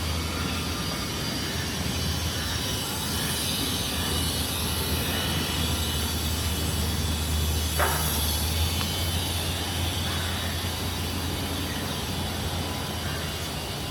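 Steady street ambience: a low, even rumble of distant traffic under a constant haze of outdoor noise, with one short sharp click about eight seconds in.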